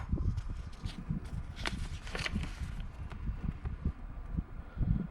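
Commodore 1526 dot-matrix printer printing, a fast, uneven clatter of low knocks with occasional sharper clicks.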